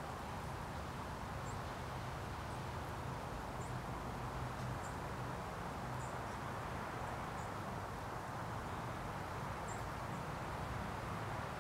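Steady outdoor background hiss with a low hum, and faint, short, high bird chirps every second or so.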